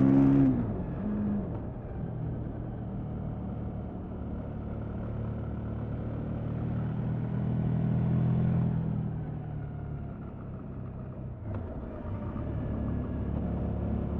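Stock exhaust of a KTM 1290 Super Adventure S V-twin engine. In the first moment it drops from high revs, then runs at steady moderate revs that swell and ease off again. A brief dip and a click come about three-quarters of the way through.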